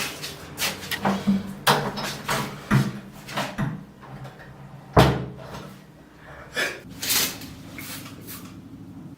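A string of sharp knocks and clatters, like hard objects being handled or a door or cupboard being worked. One loud bang comes about five seconds in.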